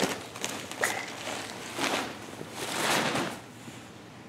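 Collapsible fabric clothes hamper rustling and swishing as a toddler moves about in it and tips it over, with a few light knocks.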